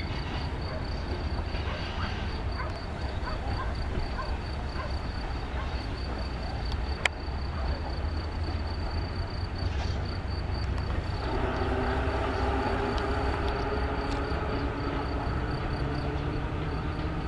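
Soviet ER1 electric multiple unit, built in 1962, running along the line: a steady low rumble of its running gear on the rails. A steady whine of several pitches joins about eleven seconds in.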